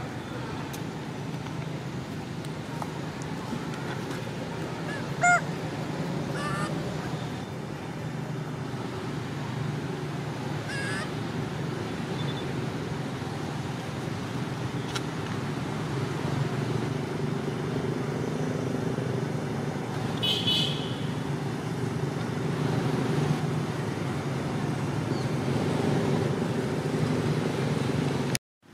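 A steady low hum runs throughout and grows a little louder in the second half. Over it come a few brief high-pitched macaque calls that rise and fall, the loudest one about five seconds in.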